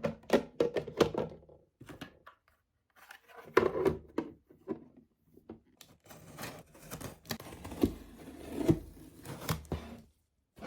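Objects being handled at close range: a series of small clicks, knocks and rustles, with short pauses a little after two seconds and near six seconds, ending abruptly near the end.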